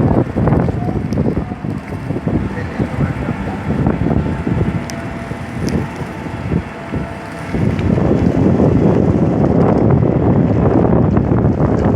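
Wind buffeting the microphone over a rumble of city street traffic, growing louder about two-thirds of the way through.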